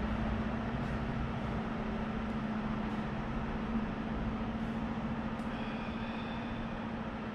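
Steady machinery hum with an even rushing noise, like ventilation running.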